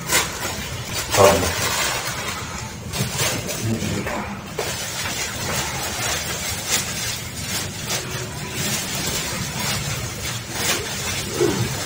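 Plastic bag being handled, rustling and crinkling in quick irregular crackles.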